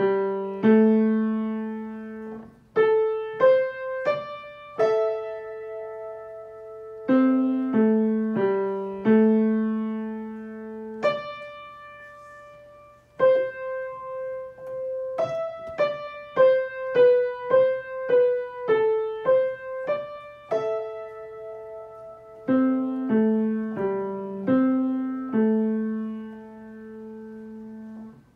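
Piano playing a slow, simple beginner lesson-book piece with both hands, the right hand in A minor position and the left in F major position: mostly single notes over two-note intervals, each struck and left to fade, closing on a long held note.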